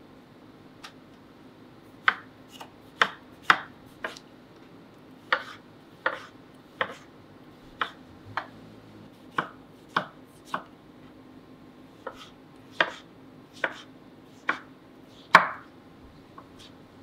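Chef's knife dicing tomato on a wooden cutting board: about twenty sharp, unevenly spaced knocks of the blade striking the board, the loudest one near the end.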